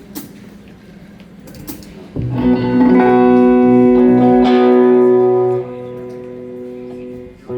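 Electric guitar struck on a single chord about two seconds in and left to ring, loud at first and then fading to a softer sustain before it is cut off near the end. Before the chord there is only a low hum with a few small clicks.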